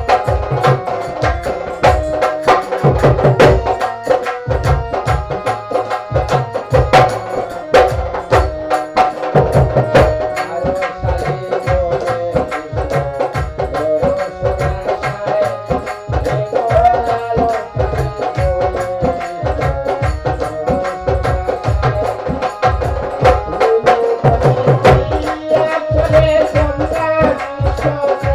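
Live Bengali baul folk music: a hand drum beats a steady rhythm under a sustained, wavering melody line.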